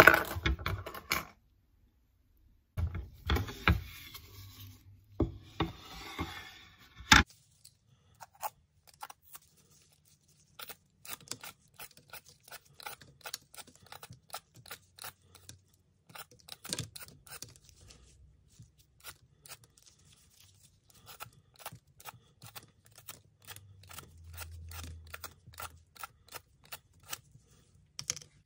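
Plastic Y-peeler scraping the skin off a red apple in short, crisp strokes, a couple a second. Before the peeling, handling and rustling noises, ending in a sharp click about seven seconds in.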